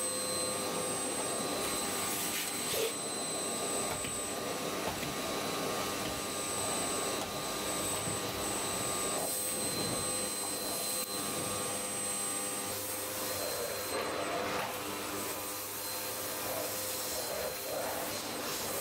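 Vacuum cleaner running steadily: a motor whine over a continuous rushing noise.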